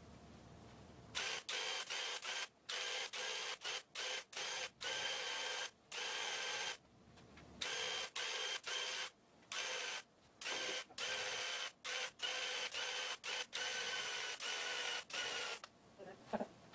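Handheld electric paint sprayer spraying primer in many short on-off bursts, starting about a second in and stopping shortly before the end. Its motor gives a steady whine during each burst.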